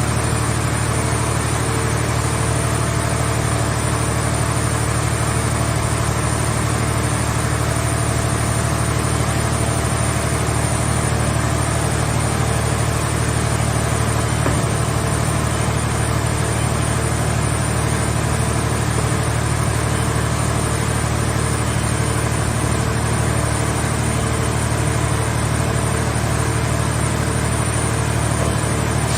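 Hydraulic scrap car-body baler's power unit running with a steady, unchanging low hum and a few constant tones.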